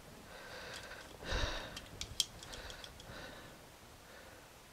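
Faint handling of two-conductor speaker wire being split apart by hand: a soft rustle about a second in, then a sharp click and a few small ticks.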